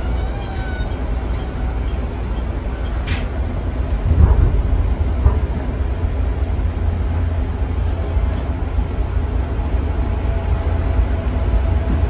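Electric commuter train running along the track, heard from inside the driver's cab: a steady low rumble, with a sharp click about three seconds in and a heavier thump about a second later.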